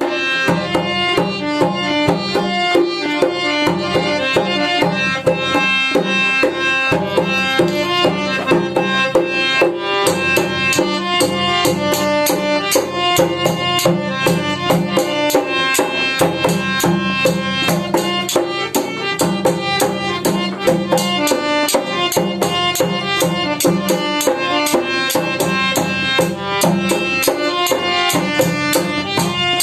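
Instrumental intro of a Rajasthani folk bhajan: fast, steady dholak drumming under a sustained melody instrument, with no singing.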